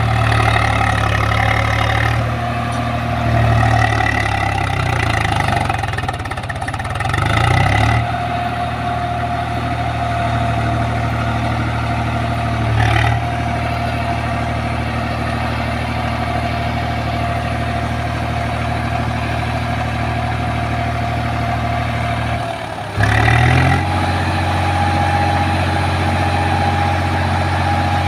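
Swaraj 735 FE tractor's three-cylinder diesel engine running with a loaded trailer, its revs rising and falling a few times in the first seconds and then holding steady. A little before the end it dips briefly, then steps up to a higher steady speed as the trailer's hydraulic tipper raises the load.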